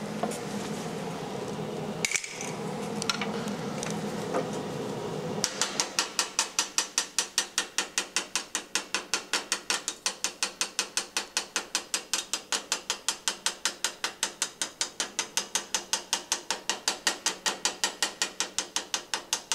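Chipping hammer striking the slag off a fresh 7018 stick weld on carbon-steel angle. It is a rapid, even run of sharp metallic taps, about five a second, starting a few seconds in after a steady hiss.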